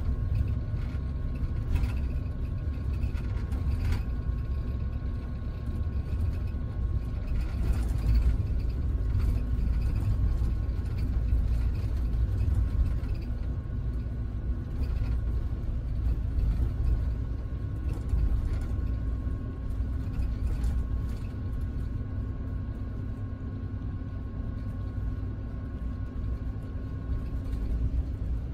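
Scania double-decker coach cruising on the highway, heard inside the upper-deck cabin: a steady low rumble of engine and road with a faint steady whine, and light clicks and rattles now and then.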